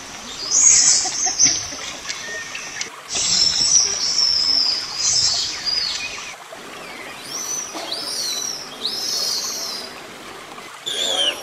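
High-pitched animal calls: two stretches of shrill, rasping calls, then several short arched whistles in the second half.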